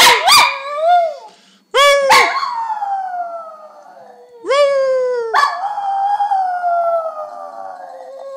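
Small dog howling, about four howls in a row. Each starts with a quick rise and then slides slowly down in pitch, and the last is the longest.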